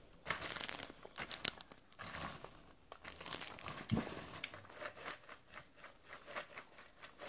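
Popped popcorn rustling and crackling as it is stirred with a spoon in a plastic bowl, a quick run of irregular light crackles, with a soft knock about four seconds in.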